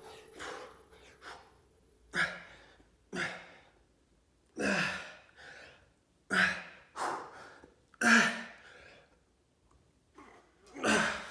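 A man breathing hard from exertion during a set of chest exercises: a string of about seven loud, forceful breaths, some with a faint voiced grunt, spaced a second or so apart with quieter breaths between.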